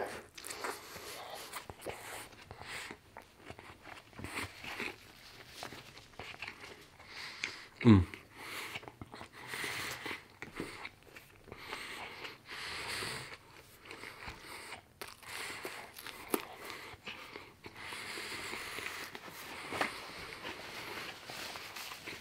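Close-miked chewing and biting of a McDonald's chicken burger and fries, with irregular wet mouth clicks and smacks. About eight seconds in, a short low vocal sound falling in pitch stands out as the loudest moment.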